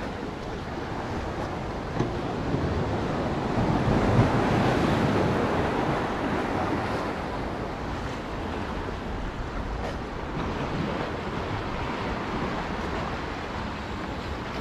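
Steady wind rushing over the microphone, mixed with the wash of waves against the pier below. It swells a little about four seconds in.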